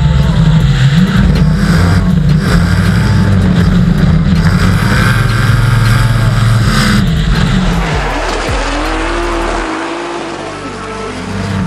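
Drift cars' engines held at high revs with tyres squealing as they slide, loud for about eight seconds and then dropping away, with a pitch that rises and falls as a car passes near the end.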